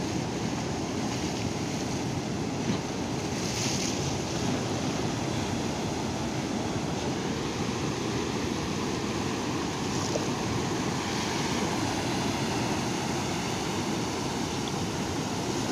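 Sea surf: waves breaking offshore and washing up over sand and rocks in a steady rushing wash, with a louder hissing wash about four seconds in and again about ten seconds in.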